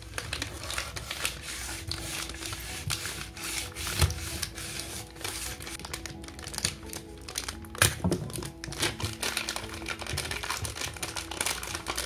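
Foil wrapper on a chocolate compound bar crinkling and a kitchen knife clicking against a wooden cutting board as the bar is cut and unwrapped, over background music. Two sharper knocks stand out, about four and eight seconds in.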